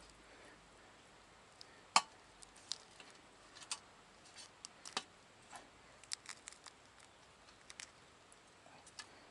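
Scattered light clicks and taps of utensils and food being handled at a charcoal grill, with one sharper click about two seconds in.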